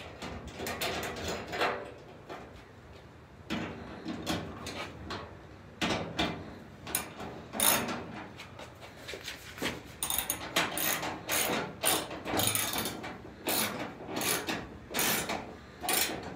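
Hand ratchet wrench clicking as it turns a fender mounting bolt, in short runs of rapid clicks with pauses between strokes.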